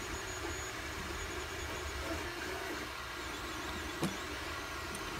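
Dremel rotary tool motor running steadily at low speed, holding the clamped ends of the coil wire, with a single sharp click about four seconds in.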